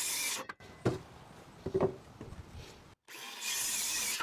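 Battery-powered circular saw cutting through 2x4 lumber in two short cuts, one ending about half a second in and another starting past three seconds. A few light knocks of wood being handled come between them.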